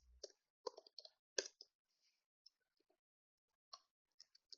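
Faint, irregular clicks of computer keyboard keys as code is typed, a quick run of keystrokes in the first second and a half, a pause, then a few more near the end.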